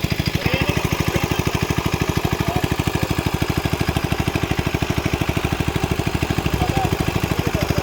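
A small engine running steadily at an even idle, chugging at about a dozen beats a second.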